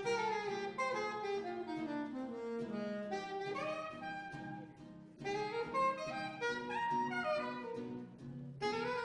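Small jazz combo playing, with a saxophone carrying a running melodic line over the accompaniment. The line breaks off briefly about five seconds in and again near the end.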